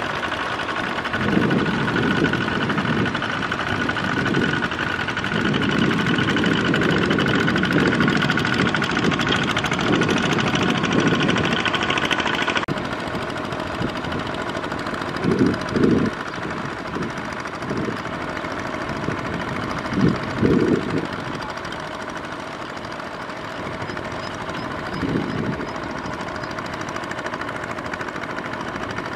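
Two-wheel walking tractor's single-cylinder diesel engine running steadily under load, with mud and water sloshing and splashing as its steel cage wheels churn through the flooded paddy. The sound changes abruptly about halfway through and is a little quieter after.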